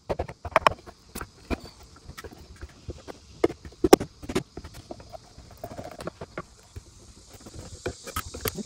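A claw hammer and a pry tool work old nails out of a wooden box: irregular knocks, clicks and scrapes of metal against dry wood. The hardest knocks come about half a second in and around four seconds in.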